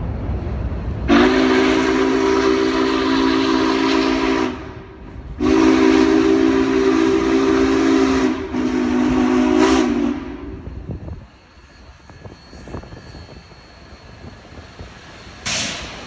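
Union Pacific 4014 Big Boy steam locomotive's whistle sounding a chord of several low notes in two long blasts and a shorter third, over the low rumble of the approaching train. A short burst of steam hiss comes near the end.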